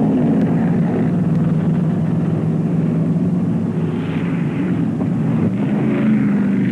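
Offshore racing powerboat engines running, a steady low drone that steps up in pitch near the end.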